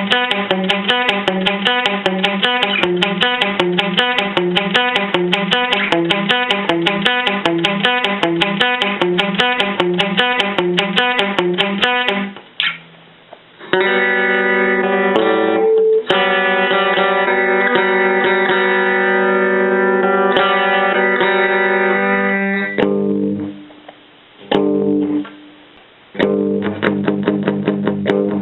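Electric guitar played through a Roland Jazz Chorus amplifier. A fast run of evenly picked notes stops about twelve seconds in. Sustained ringing chords follow, then two short chords, and the picking returns near the end.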